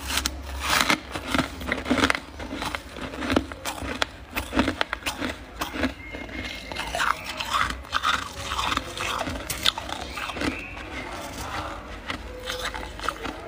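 Powdery freezer frost being bitten and chewed close to the microphone: an irregular run of crisp crunches.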